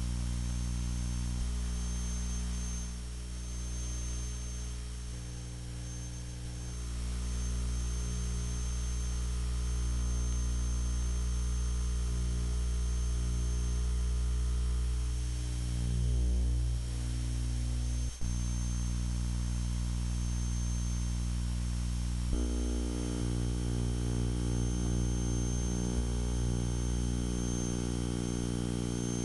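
A steady low electrical hum with a stack of overtones, its tone shifting a few times, and a faint high whine that comes and goes. There is a single click about two-thirds of the way through.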